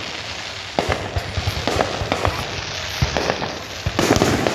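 Fireworks going off in quick succession: repeated sharp bangs and crackling pops, with a denser, louder burst of crackle near the end.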